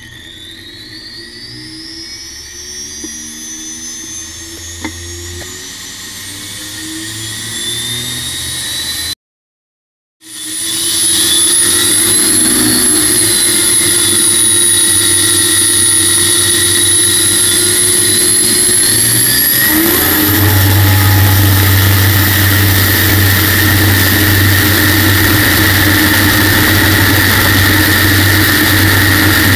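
General Electric helicopter gas-turbine engine in an aluminium-hull jet boat, spooling up with a whine that rises in pitch and grows louder. After a brief cut to silence it runs with a loud steady high whine, which steps up in pitch with a deeper rumble beneath it about twenty seconds in as the throttle is opened.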